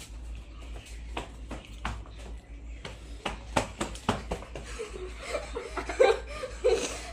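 A run of quick sharp clicks and taps, then people laughing and chuckling in the second half.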